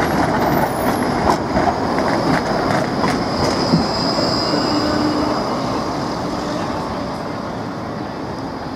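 A low-floor Škoda tram passes close by on street track, its wheels rumbling and clicking over the rails. A thin high wheel squeal comes in a few seconds in. The sound eases off as the tram moves away.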